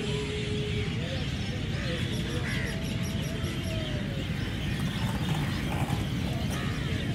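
Outdoor ambience of an Indian town or village: a steady rumble and murmur with birds chirping over it, and a quick run of high ticks about two seconds in.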